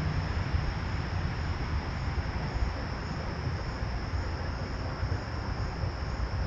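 Crickets trilling steadily at one high pitch, over a low, uneven rumble.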